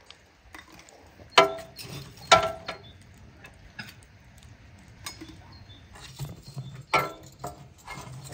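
Long metal fire tongs clinking against an iron firebox as glowing coals are picked up to fuel a samovar. A handful of sharp metallic clinks that ring briefly, the loudest about a second and a half in, again a second later and near seven seconds in.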